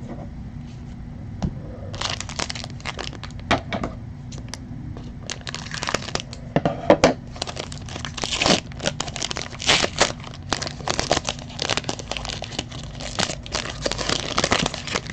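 Foil trading-card pack being torn open and crinkled by hand, starting about two seconds in, with the wrapper crackling irregularly as the cards are pulled out.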